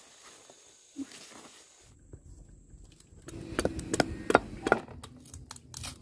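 A cleaver chopping the skin off a pumpkin on a wooden block: a quick run of sharp strikes through the second half, over a low steady rumble.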